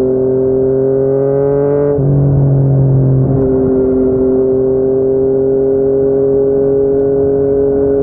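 Yamaha MT-09's three-cylinder engine through a Yoshimura R55 slip-on exhaust, rising in pitch under acceleration. About two seconds in the pitch drops sharply at an upshift, then the engine runs steadily at a constant speed.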